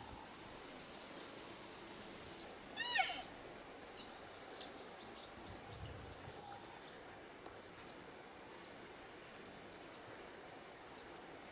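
A single short, nasal, meow-like chirp from a cow elk about three seconds in, a quick arching call over faint outdoor ambience. A few tiny high bird chirps sound near the end.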